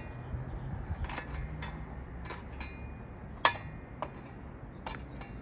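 A handful of scattered metallic clinks and taps, the loudest about three and a half seconds in, as a steel shovel blade knocks against the cable converter's metal chassis, over a steady low hum.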